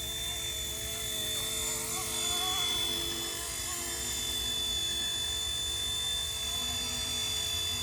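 Electric motor and rotor whine of an RC Era C189 MD500 remote-control helicopter in flight: a steady high-pitched whine whose pitch wavers slightly as the throttle shifts.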